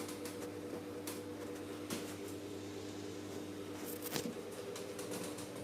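Steady hum of a running desktop PC, with a few sharp clicks and knocks about one, two and four seconds in.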